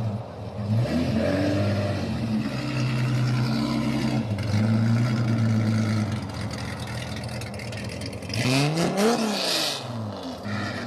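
A vehicle engine running steadily. Near the end its pitch sweeps up and down in a brief, louder rev.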